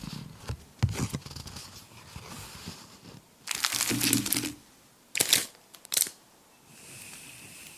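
Packaging being handled and opened: crinkling and tearing in separate bursts, the longest about halfway through, then two short sharp rustles.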